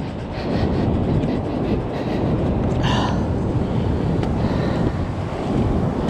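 Wind buffeting the microphone in a steady low rumble over ocean surf washing on the beach. A short high-pitched sound cuts through about halfway.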